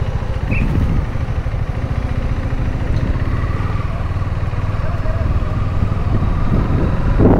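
KTM Duke 390's single-cylinder engine running steadily as the motorcycle rolls along slowly in traffic.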